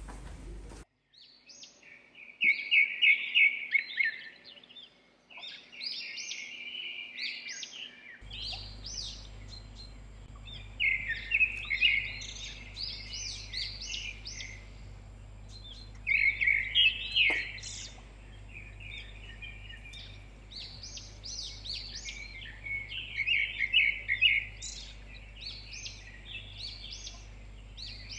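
Songbirds singing in short, rapid chirping phrases that repeat every few seconds. A low steady hum comes in about eight seconds in.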